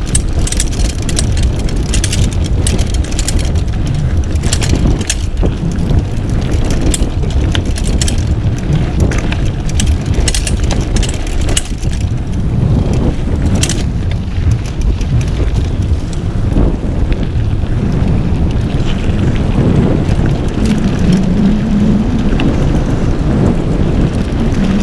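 Mountain bike rattling and clattering over a rough, bumpy dirt forest track, with many irregular knocks from the bike and wind rumbling on the microphone.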